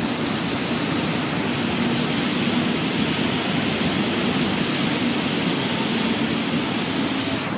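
Steady rushing of water churned up by the departing catamaran fast ferry Max Mols, with a faint steady engine hum beneath.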